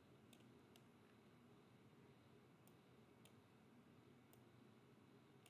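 Near silence: faint room tone with about six soft, sharp clicks spread unevenly through it.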